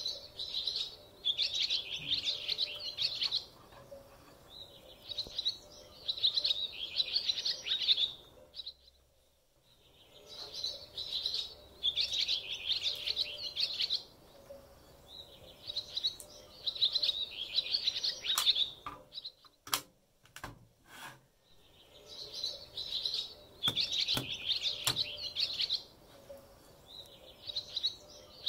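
Small birds chirping and twittering in bursts of a second or two that recur every few seconds, over a faint steady hum. A few sharp clicks come about two-thirds of the way in.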